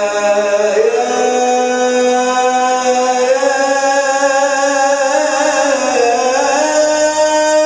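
Arabic mawwal music: a sustained melodic line with slides and vibrato over a steady held drone, with no beat.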